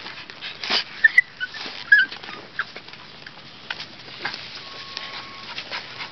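Yorkshire terrier digging and rooting in loose garden soil: repeated scratching and rustling of dirt and leaves, with a few short high whimpers about one to two seconds in.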